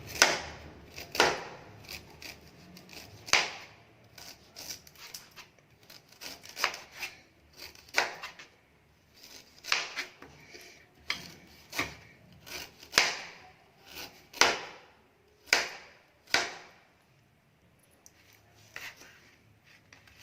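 Knife chopping fresh ginger on a chopping board: single sharp chops at an uneven pace, about one a second, pausing near the end.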